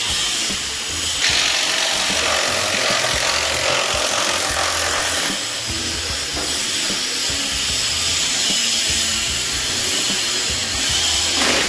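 Steady hissing power-tool noise, louder from about a second in.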